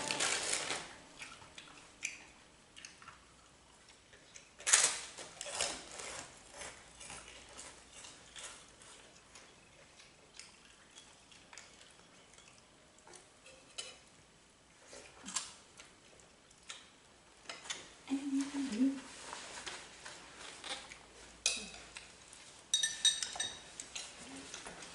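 Spoons clinking and scraping against plates and bowls during a meal: scattered light clinks and taps, irregular and intermittent.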